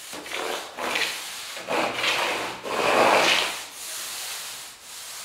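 Wool paint roller loaded with wet paint, pushed up and down over a sanded skim-coated wall: a run of rasping swishes, one per stroke, about six in all, loudest in the middle.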